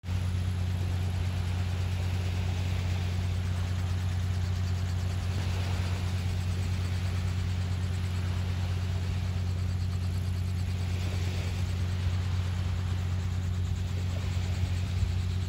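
An engine idling with a steady low hum, over a faint hiss that swells every few seconds.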